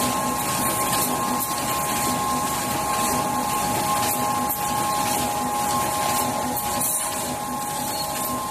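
Automatic multi-colour tube UV screen printing machine running: a steady mechanical hum with two constant whining tones, and short hisses that come and go every second or so.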